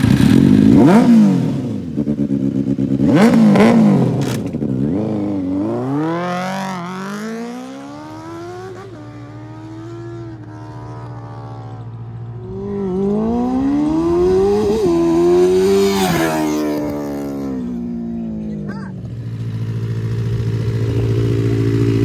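Benelli 600i inline-four motorcycle engine through an aftermarket M4-style exhaust: two sharp revs, then it pulls away, pitch climbing through several upshifts and fading. It then comes past at speed, pitch rising and then dropping. Near the end a second motorcycle idles steadily.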